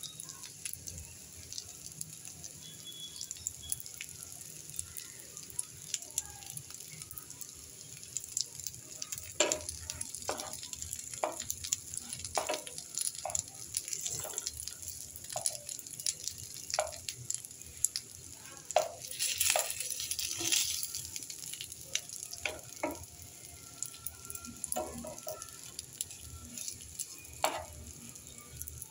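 Salted hilsa wrapped in pumpkin leaves frying in a nonstick pan: a steady sizzle with crackles. Short knocks and scrapes of a wooden spatula come often, most from about a third of the way in to three quarters through.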